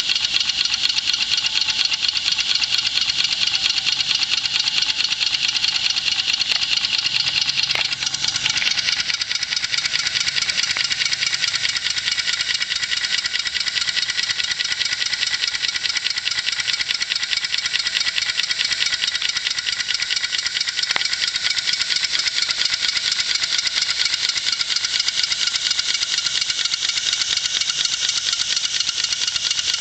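Hand-made 1-inch-scale live steam traction engine running on compressed air: a rapid, steady chuffing from the exhaust of its single cylinder, with a light mechanical rattle of the running gear.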